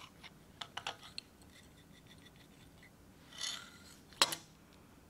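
Steel parts of a chainsaw chain grinder's clamp being handled during disassembly: a few light metal clicks, a short scrape about three and a half seconds in, then a sharp metallic clink with a brief ring near the end.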